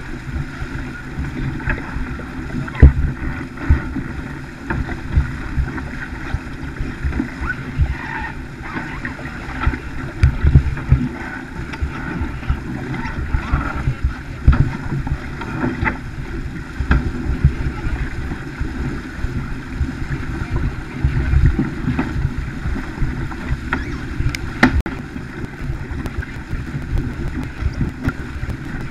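Water rushing and splashing along the hull of a Farr 280 racing sailboat heeled under sail, with wind buffeting the microphone in uneven gusts. A few sharp knocks are heard, the clearest near the end.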